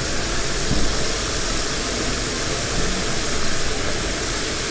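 Red curry sauce simmering in a frying pan over a gas burner: a steady, even sizzling hiss.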